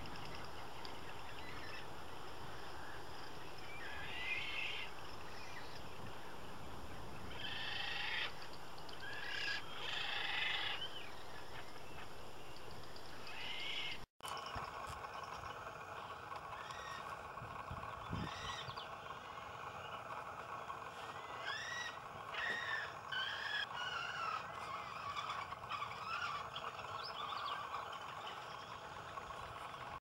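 Bird calls at a nesting colony over a steady background hiss: scattered short calls in the first half, then, after an abrupt cut about halfway, a steady hum under a run of quick, chirping call notes.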